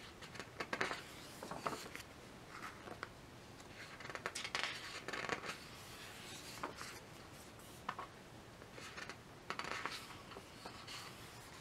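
Thick glossy pages of a large hardcover photobook being turned and smoothed by hand: a series of short, faint paper rustles and swishes, in clusters a few seconds apart.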